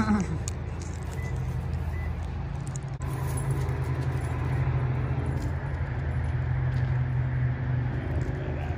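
A vehicle engine idling with a steady low hum. A dog gives a short falling whine right at the start.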